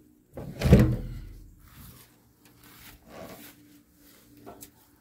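A fire truck's metal equipment compartment door being opened and handled: one loud clunk just under a second in, then a few softer knocks.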